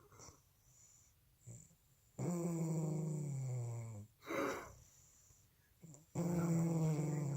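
A woman snoring loudly in her sleep: two long droning snores about four seconds apart, each slowly falling in pitch, with a short noisy breath out between them.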